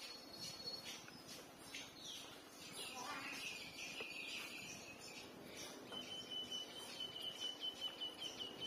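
Nursing puppies squeaking and whining in thin, high-pitched calls: a drawn-out wavering whine about three seconds in, then a quick run of pulsing high squeaks near the end.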